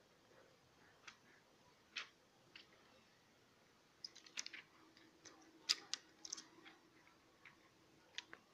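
Faint clicks and crinkles of fingers handling a new Huawei Y6 Pro smartphone and picking at the clear plastic film on its screen: a few scattered ticks, then a busier run of crackles from about halfway through.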